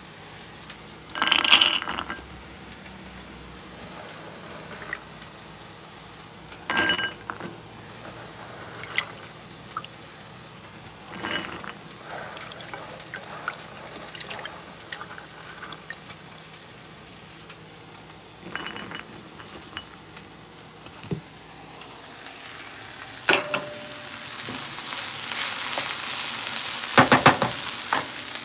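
Soaked chickpeas scooped by hand out of their soaking water in a steel pot: short bursts of sloshing and chickpeas knocking against the pot, several times. Near the end a pan of chopped okra sizzles.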